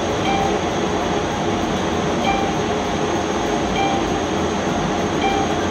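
An IPL (intense pulsed light) machine running with a steady loud whir from its cooling system. Four short beeps come at even spacing, about one every one and a half seconds, as the handpiece fires its light pulses.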